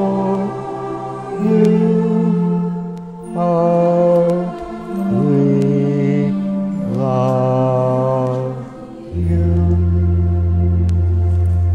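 Slow hymn music in long held chords, changing every second or two, with a deep bass chord coming in about nine seconds in.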